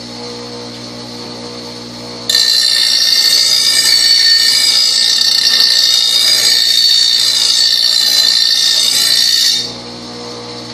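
Bench grinder motor humming steadily; about two seconds in, a steel lawn mower blade is pressed to the grinding wheel and ground for about seven seconds, giving a loud, hissing, high-pitched grinding noise. The blade is then lifted off and the motor hum carries on. This is a pass sharpening the blade's cutting edge.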